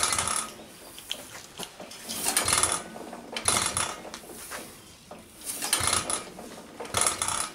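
1913 Stickney 1 3/4 HP hit-and-miss engine being turned over by hand at the flywheel, giving a clatter of its moving parts about every second or two. It is not firing yet; it is still drawing in fuel and may be flooded.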